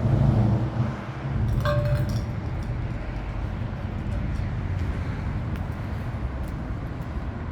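Low, steady outdoor rumble, heavier in the first two seconds, with one short ringing clink about a second and a half in.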